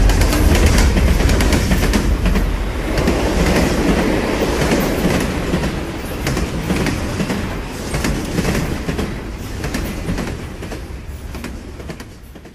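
Train running on rails: a dense rumble with a clickety-clack of wheels over rail joints, fading steadily away near the end.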